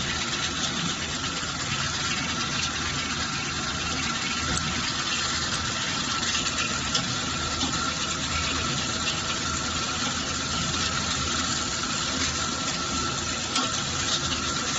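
Machine running steadily: a constant noisy hum with a faint high whine held throughout and a few light ticks.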